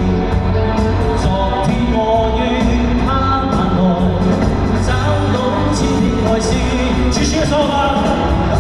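Pop-rock band music with drums, bass and singing, at a steady loud level, with cymbal strokes keeping a regular beat.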